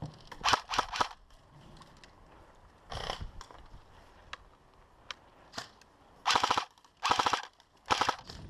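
Airsoft guns firing in short bursts of rapid clicks: two quick bursts at the start, one about three seconds in, then three more close together near the end.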